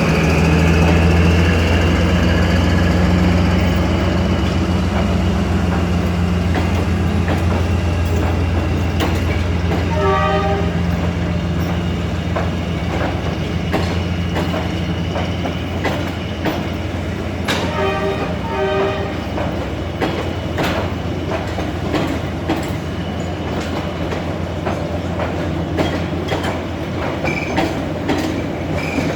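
D19E diesel-electric locomotive's engine running steadily as it pulls a passenger train out. A horn sounds briefly about ten seconds in and again about eighteen seconds in. Wheels click over rail joints more and more toward the end.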